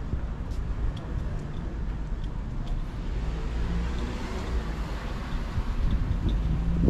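Street traffic: a steady low rumble, with a vehicle passing that grows louder and fades in the middle.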